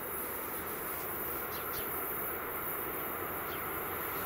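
Freight train approaching on an electrified line, heard from a distance as a steady low rumble that grows slightly louder toward the end, with a few short high chirps over it.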